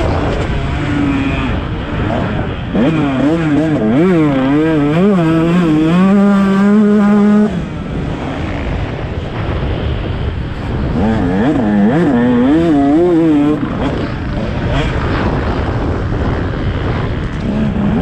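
Motocross bike engine heard on board, revving up and down hard as the throttle is worked around the track; a long pull is held high then shut off about seven and a half seconds in, and it revs up and down again about eleven seconds in.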